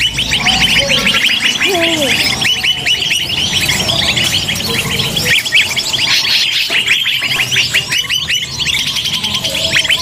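A bird-luring (pikat) recording of many small birds calling at once: a dense, unbroken chatter of rapid high chirps, with a few lower bending whistles about a second or two in.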